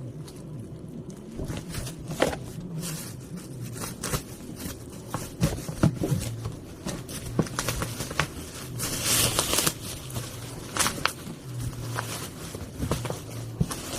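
Objects being handled: scattered clicks, knocks and scrapes, with a short rustle about nine seconds in.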